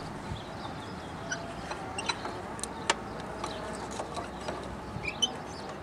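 Scattered light metallic clicks and taps of a socket and wrench working on a stuck cylinder head bolt of a Deutz diesel engine, over a steady low background noise.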